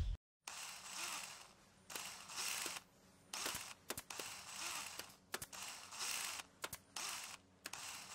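Handling noise as a wooden ramp on pallets and a wheeled trolley are moved and set up: short patches of scraping and rustling with sharp clicks and knocks, each cutting in and out abruptly, over a faint low hum.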